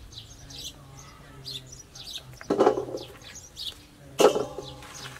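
Small birds chirping over and over, with two louder knocks about a second and a half apart from utensils and ingredients being handled at a wooden chopping board and steel bowl.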